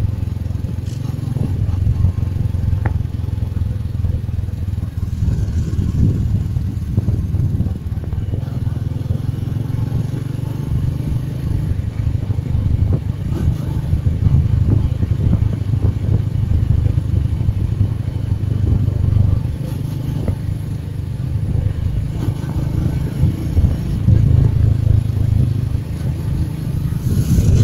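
Motorcycle riding at a steady cruise, heard from the saddle as a continuous low, uneven rumble of engine and road.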